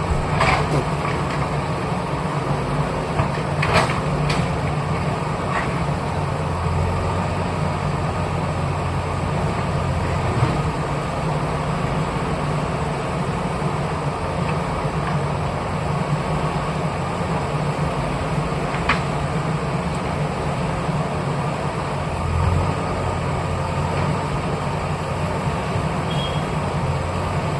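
Bulldozer's diesel engine running steadily, with a few short knocks near the start, around four seconds in and once more later on.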